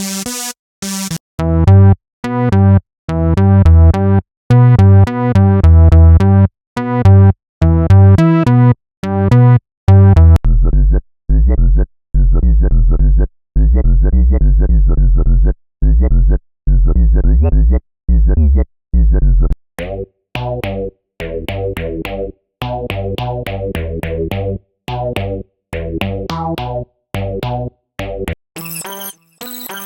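SynthMaster One software synthesizer presets playing short, rhythmic sequenced riffs, one patch after another. A bright patch with a heavy bass is followed about ten seconds in by a deep sub-bass patch with a sweeping filter, then by a thinner mid-range patch, and a bright, high patch comes in near the end.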